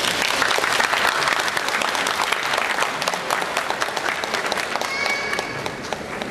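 Audience applause: dense clapping, heaviest in the first few seconds and thinning out toward the end.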